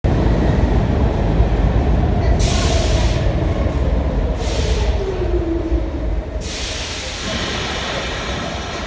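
R46 subway train pulling into an underground station and slowing to a stop: a loud rumble of wheels on the rails, with a motor whine that falls in pitch as it slows. Three bursts of hiss come in over it, the last lasting through the end.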